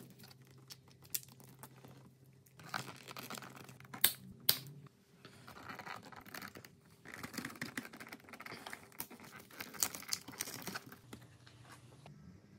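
Hands working wiring, plastic tubing and fittings on a motorcycle: irregular rustling and crinkling, with two sharp clicks about four seconds in, over a faint steady low hum.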